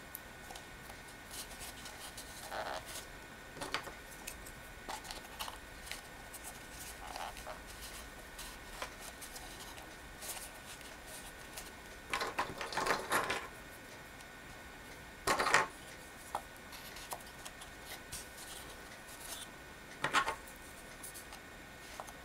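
Wooden spring clothespins being handled and clipped onto the rim of a fabric-covered plastic cup: scattered light clicks and rustles, with a few louder clattering bursts about twelve, fifteen and twenty seconds in.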